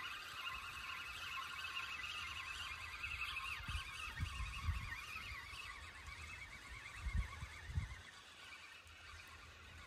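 A steady chorus of warbling animal calls, many voices overlapping, fading near the end. A few dull low thumps come around the middle and again about seven seconds in.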